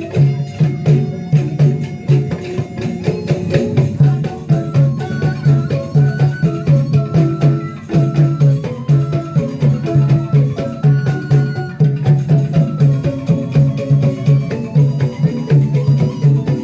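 Instrumental traditional-style music: a fast, even low drum pulse under a repeating melodic line of short notes.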